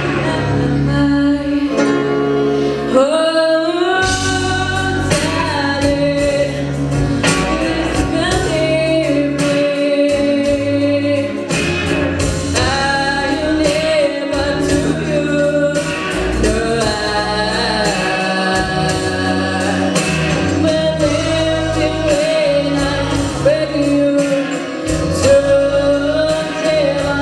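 A song sung over an instrumental accompaniment with bass and a beat.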